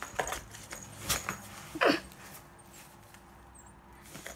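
A cat scrabbling inside a cardboard box, its claws and body scratching and rustling against the cardboard as it paws at a toy, with a few sharp scrapes in the first two seconds, the loudest just before two seconds in, then quieter.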